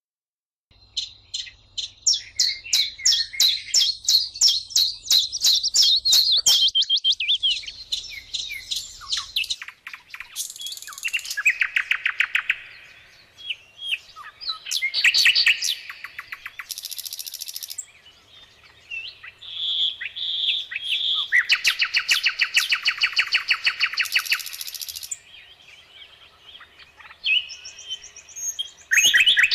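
Songbirds singing: a series of high, fast song phrases made of rapidly repeated notes and trills, with short pauses between phrases.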